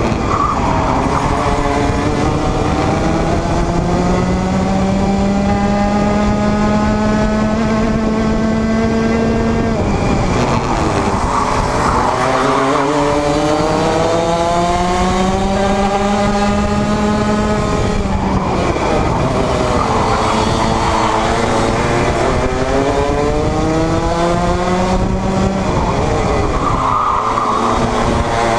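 Junior Rotax 125cc two-stroke kart engine heard from on board at race pace. The pitch climbs in one long unbroken rise down each straight, then drops sharply off the throttle into a corner, three times, roughly every eight seconds.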